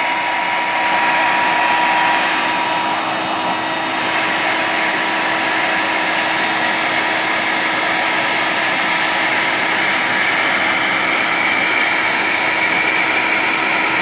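CNC router spindle spinning at 20,000 rpm while milling a sub plate flat, together with a dust collector running. It is a steady whine over cutting and suction noise; a higher tone fades out a few seconds in.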